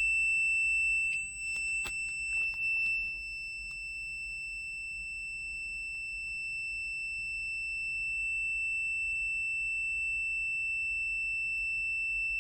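FUYI 8233D multimeter's continuity buzzer sounding one steady, unbroken high-pitched tone while the test probes are shorted together. A few light clicks come in the first three seconds, as the probe tips touch.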